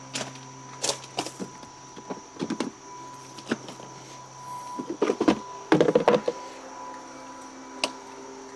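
Footsteps and small knocks as someone walks across a patio and steps down onto grass, loudest in a cluster a little past the middle, over a steady hum.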